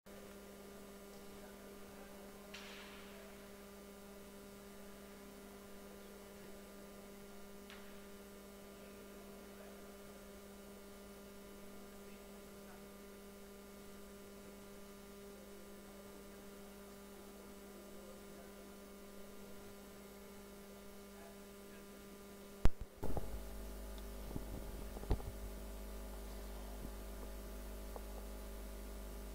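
Steady electrical mains hum. About three quarters of the way through there is one sharp click, after which a deeper hum joins in and a few faint knocks follow.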